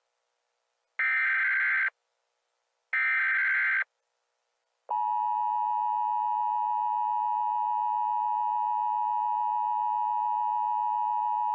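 Emergency Alert System SAME header: two short buzzy digital data bursts about a second apart, then, about five seconds in, the steady two-tone EAS attention signal begins and holds.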